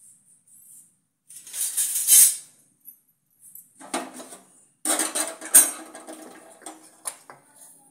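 Metal kitchen utensils clinking and clattering in a few short bouts with pauses: a metal spatula against the kadhai and the lid and small bowls of a steel spice box being handled.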